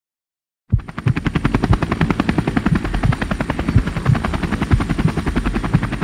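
A rapid, even chopping beat with a deep low end, starting suddenly just under a second in and going on steadily.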